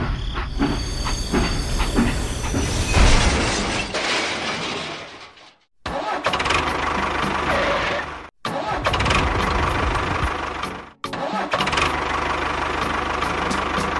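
A small motor or engine running, cut off abruptly three times and starting again each time.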